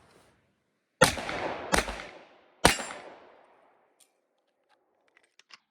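Three 9mm shots from a Glock 48 pistol with a PSA compensated slide, the first two close together and the third under a second later, each with a short echo. It is firing aluminum-cased ammo and cycling it. A few faint clicks follow near the end.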